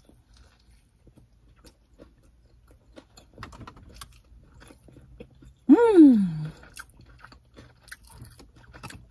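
A person biting and chewing a crispy fried chicken sandwich: faint, irregular crunches and mouth clicks. A little past halfway there is one short vocal sound that falls in pitch.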